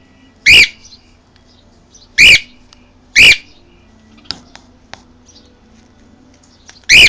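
Cockatiel calling: four short, loud, piercing squawks, two close together about two to three seconds in and the last near the end.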